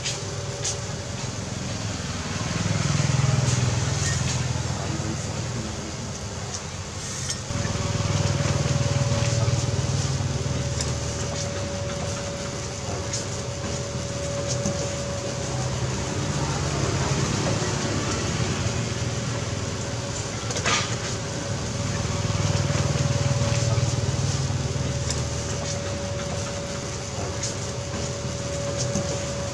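Street background noise: traffic going by in slow, rising and falling swells of low rumble, with a steady hum that comes in about a quarter of the way through and a few sharp clicks.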